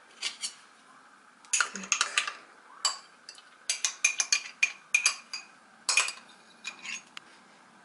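Metal teaspoon clinking and scraping against a glass jar and a bowl as tapioca starch is spooned out into PVA glue: an irregular run of sharp clinks, several ringing briefly.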